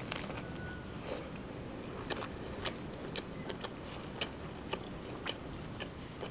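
A bite into a shawarma in lavash flatbread, then close-up chewing with an irregular scatter of sharp mouth clicks.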